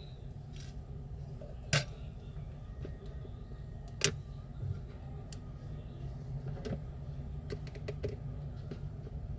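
Sharp clicks and taps of small repair tools and parts on an iPhone 6S being opened for a battery replacement: two louder clicks about two and four seconds in, then a run of lighter ticks near the end, over a steady low hum.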